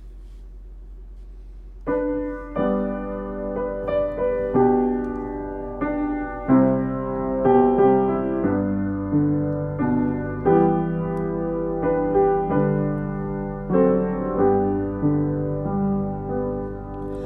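Piano playing slow, sustained chords, which come in about two seconds in over a low steady hum.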